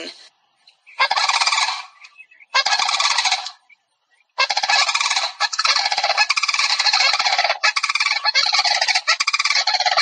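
Crane calling: two calls of about a second each, then from about four and a half seconds in a long run of calls with only brief breaks.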